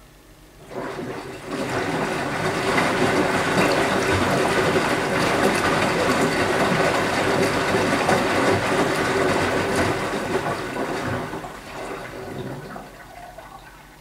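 Water rushing into a Beko WMY 71483 LMB2 front-loading washing machine during its rinse cycle, as the inlet valve opens and the water pours through the detergent drawer into the drum. It starts about a second in, runs steadily for about ten seconds, then tails off near the end.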